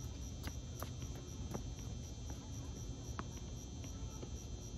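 Crickets chirping steadily, a high pulsing trill, with a few faint sharp taps.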